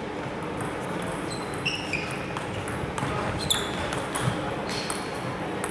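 Table tennis balls clicking off bats and tables in rallies: an uneven run of sharp ticks, some ringing with a short high ping.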